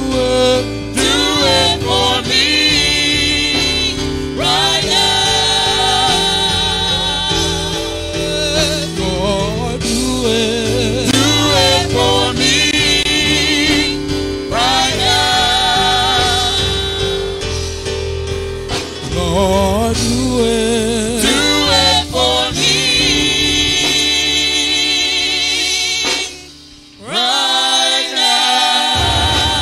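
Gospel singing by a church praise team, long held notes with vibrato over steady instrumental backing. The music briefly drops away a little before the end, then resumes.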